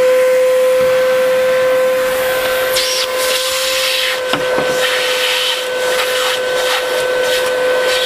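Comfyer 22.2V cordless stick vacuum running on its high setting: a steady high whine over rushing air. From about three seconds in come scattered clicks as marbles are pulled against the nozzle.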